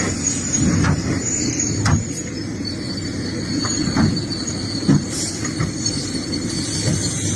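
Excavator engine running steadily while digging, with several sharp knocks and a thin high whine over the rumble.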